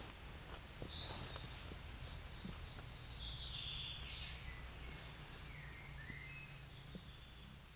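Wild birds singing and chirping, with many short trills and one louder call about a second in, over a steady low rumble.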